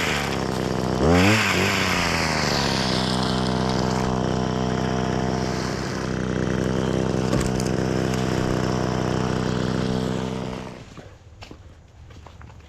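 An engine revs briefly about a second in, then runs steadily, and ends abruptly about eleven seconds in.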